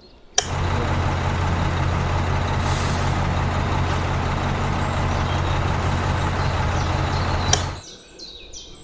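Heavy truck-type engine running steadily with a deep low hum. It starts abruptly about half a second in and cuts off sharply near the end.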